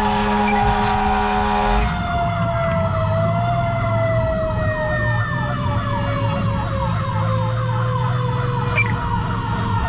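Fire engine sirens on an emergency run, over the truck's engine. A steady horn tone cuts off about two seconds in. Then an electronic siren yelps rapidly, about three sweeps a second, over a second siren tone that falls slowly in pitch.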